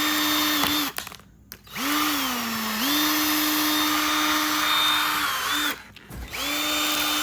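Drill running in three bursts as the bit grinds into an iPhone SE. The motor's pitch sags briefly under load near the start of the long middle run, then holds steady.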